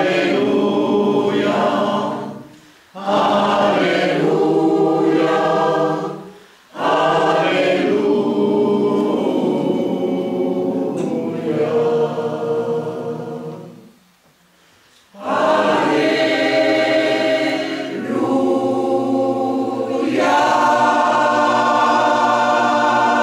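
Mixed choir of men's and women's voices singing unaccompanied in parts. Phrases break off briefly for breaths, with a near-silent pause about 14 seconds in, and near the end a long final chord is held before being cut off.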